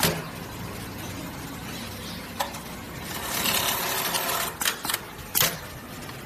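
Automatic industrial leather pattern sewing machine running, with a steady hum and a louder rush of fast stitching about halfway through. Several sharp mechanical clicks come about two and a half seconds in, twice near four and a half seconds, and once more just after five seconds.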